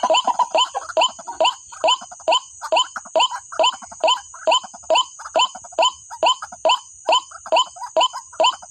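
White-breasted waterhen (ruak-ruak) calls: a harsh, downward-sweeping 'kruak' repeated evenly about three times a second. Calls overlap densely for the first second and a half, then settle into a single regular series.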